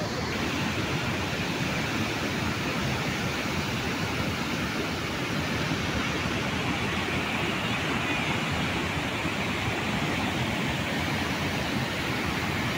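Floodwater pouring through the open spillway gates of a large dam and crashing into white water below: a steady, unbroken rushing.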